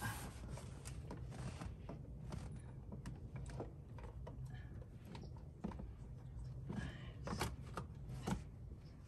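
Seat cover and its plastic clips being handled and fitted: scattered light clicks and rustles, busier about seven seconds in, over a steady low hum.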